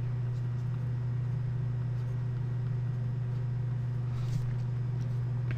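Steady low background hum, even in level throughout, with a few faint soft ticks about four seconds in.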